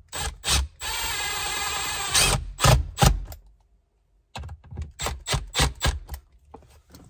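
A power screwdriver runs steadily for about a second, driving a screw into the plastic console, amid sharp clicks and knocks from parts being handled.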